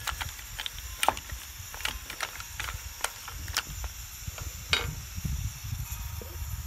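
Mussel shells clacking against each other and a wooden spatula as they are stirred in a clay pot: a dozen or so sharp, irregular clicks, the loudest about a second in and near five seconds, over a low rumble.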